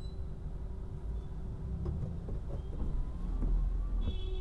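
Low steady rumble of a car driving on a wet road, heard from inside the cabin: engine and tyre noise. A brief high-pitched tone sounds near the end.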